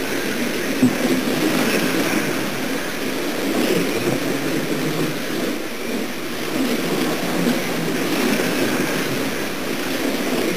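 1:32-scale Fly slot cars running laps on a multi-lane routed track: their small electric motors whine and the cars rumble along the slots in a steady noise that rises and falls a little as they pass. A brief sharp knock about a second in.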